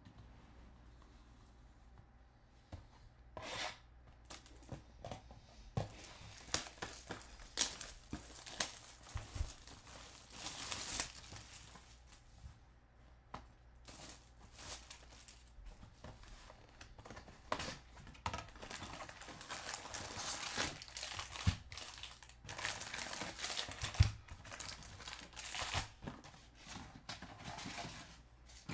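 Plastic wrap on a sealed 2021 Bowman Draft super jumbo box of baseball cards being cut and torn open, then the wrapped packs pulled out and stacked, with irregular crinkling and tearing of plastic. It starts about three seconds in.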